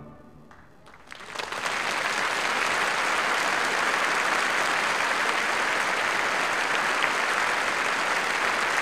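The final chord of choir and orchestra dies away in the hall's reverberation, then a large audience starts applauding about a second in. The applause builds quickly and holds steady.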